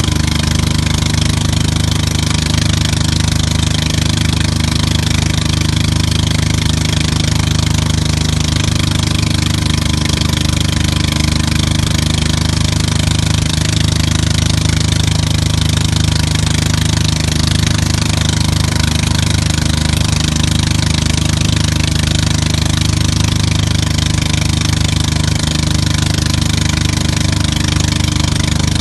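Tow boat's engine running steadily at speed, under a constant hiss of wind and rushing wake water.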